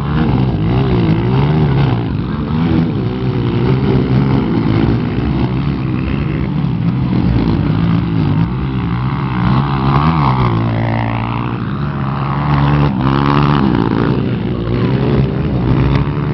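Motocross bike engines running hard, their pitch rising and falling over and over as riders rev through the track.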